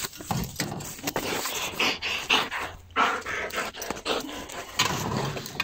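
Belgian shepherd dog panting fast with excitement, with scuffs and clinks as its chain lock is worked open.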